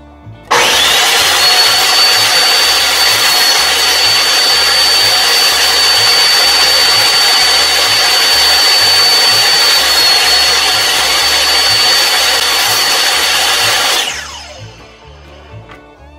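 Table saw switched on with a sudden start, its motor running at a steady high whine for about thirteen seconds while short lengths of thin pallet-wood slat are cut, then switched off and winding down.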